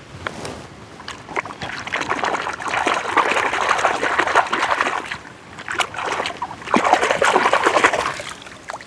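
A hand splashing and swishing a mud-caked die-cast toy car through shallow water, washing the mud off, with lots of small splashes and sloshing. It comes in two long spells with a brief lull about halfway through.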